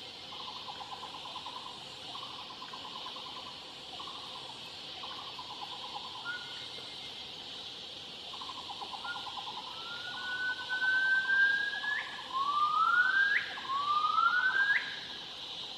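Gibbons calling: a run of short buzzy notes, then three long whoops that rise in pitch and sweep sharply up at the end. The whoops are the loudest part and come in the last few seconds. A steady high drone runs underneath.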